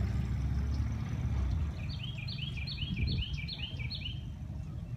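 A songbird singing a quick run of about six repeated phrases, each a high note falling into a lower slurred note, over a low rumble that is strongest in the first second and a half.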